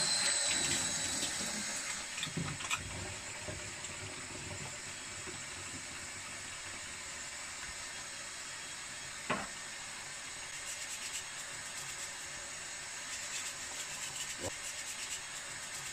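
Water running from a laundry mixer tap into a stainless steel sink while hands are scrubbed with washing powder and rinsed under the stream. The running water is louder in the first couple of seconds, then steady, with a single knock about nine seconds in.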